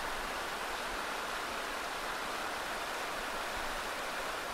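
Steady rushing of running water, like a stream, with no pitch to it.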